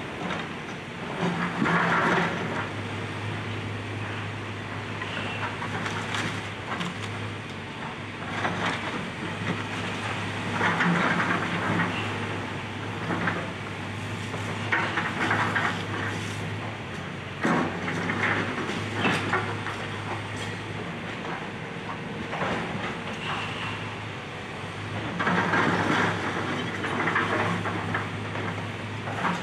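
Excavator's diesel engine running steadily while it demolishes a house, with repeated crunching, cracking and knocking of debris every few seconds.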